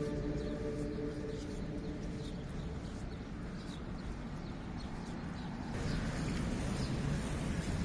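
City street ambience: a low rumble of traffic with birds chirping, under the last of a soft music track that fades out in the first second or so. About six seconds in it changes to a louder, hissier traffic noise.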